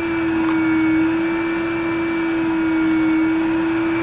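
Vacuum cleaner running steadily, sucking sawdust off the ground; its motor gives a loud, constant hum.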